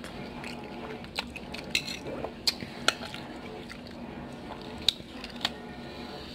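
A metal fork clinking against a ceramic plate several times, in short sharp clinks, while picking up stir-fried noodles and broccoli.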